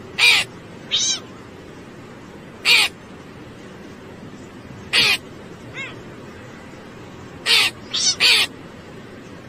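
About eight short, harsh animal calls, spaced out at first and then three in quick succession near the end, over a steady background hiss.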